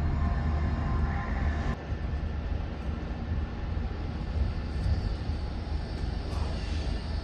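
Steady low outdoor rumble with no clear single source. A faint higher hum fades out near the start.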